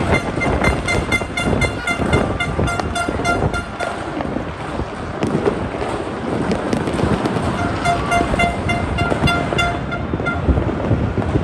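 New Year fireworks crackling and popping without pause, mixed with a horn tooting in rapid short blasts. The toots come in two stretches, early on and again near the end.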